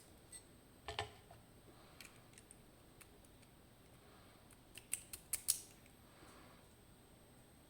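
Small metal clicks from a lock cylinder being taken apart with hand tools: one click about a second in, then a quick run of four or five sharp clicks near the middle.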